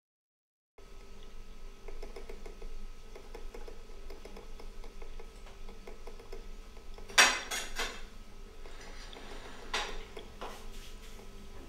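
Cutlery and dishes clinking as someone eats at a table, over a steady low background hum. The sound starts after a brief silence, and the sharpest clinks come in a quick cluster partway through, with a couple more near the end.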